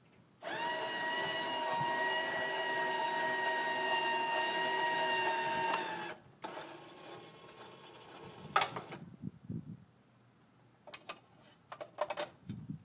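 Electric motor of a van-mounted lift crane whining steadily for about five seconds as it lowers a load to the ground, then stopping. A sharp click follows a couple of seconds later, and light clicks and rattles come near the end as the hook and strap are handled.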